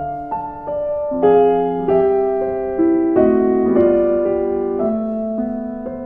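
Piano music: a slow melody of single notes over sustained chords, each note struck and then fading.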